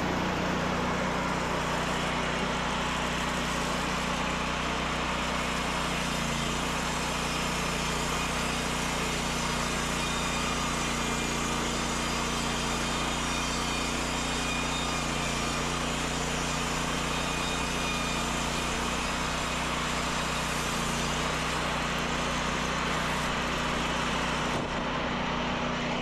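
EZ Boardwalk 40 band sawmill running under load: its engine runs steadily while the band blade cuts lengthwise through a log. Near the end the high hiss of the cut drops off a little.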